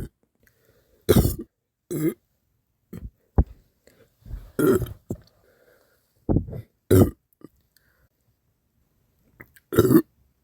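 A person hiccuping: a series of short, sharp voiced hiccups at irregular intervals, about half a dozen strong ones with a few fainter catches between.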